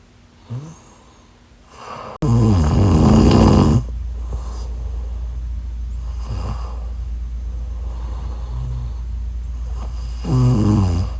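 A woman snoring in her sleep: two long, loud snores, about two seconds in and again near the end, with quieter breaths between. A sudden click comes just before the first snore, and after it a steady low hum continues.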